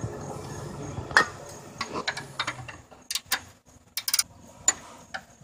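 Socket and ratchet being fitted onto a sway bar link nut: a run of irregularly spaced sharp metal clicks and clinks, the loudest about a second in. A low hum underneath stops about halfway through.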